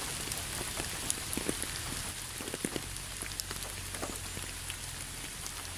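Steady rain falling, with scattered drop patters and a faint low hum underneath.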